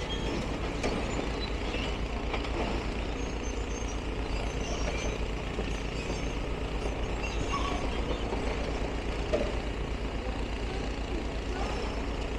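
Heavy diesel engine running steadily with a constant low rumble, and faint short high chirps scattered over it.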